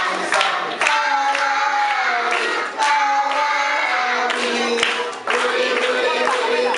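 A congregation singing together, with hand-clapping and percussion hits keeping the beat.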